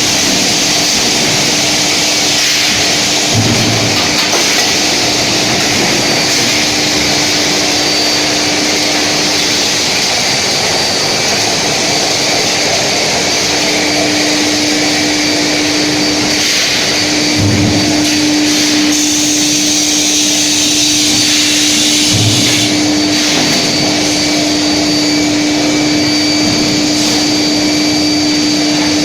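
Steel billet induction heating furnace running: loud, steady machine noise with a constant low hum and a faint high whine. A few low thuds come through, about three in all.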